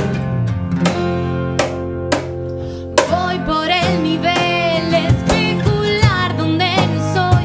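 Steel-string acoustic guitar strummed in chords, then a woman's voice comes in singing over it about three seconds in.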